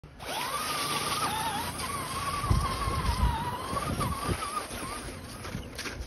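Electric motor of a radio-controlled off-road car whining, its pitch wavering up and down with the throttle, with a few low bumps along the way.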